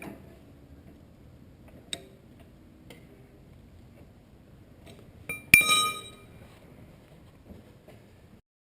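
A metal tool striking metal once with a sharp clink that rings briefly, about five and a half seconds in, after a faint click around two seconds in.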